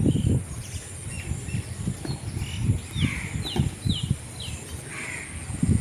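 Swallows chirping: short, quick downward-sliding calls, with a run of four in quick succession midway, over low rumbling noise.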